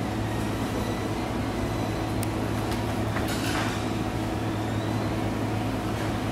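A steady low hum under an even hiss.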